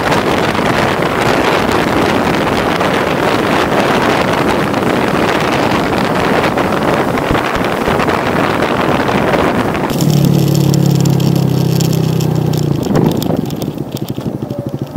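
Wind rushing over the microphone with road and engine noise from a motor scooter on the move. About ten seconds in it changes abruptly to a steady low hum, which fades to quieter pulsing near the end.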